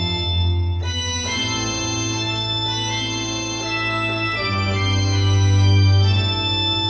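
Electronic keyboard played on an organ voice: sustained chords over a deep held bass, the chords changing about a second in and again a little past four seconds in.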